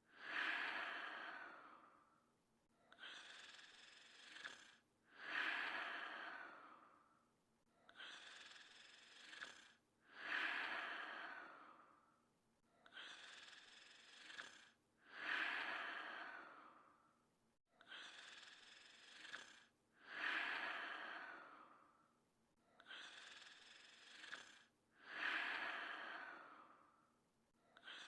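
A sleeping person's slow, heavy breathing with a soft, breathy snore: each breath is a quieter rush followed by a louder one that fades, about once every five seconds.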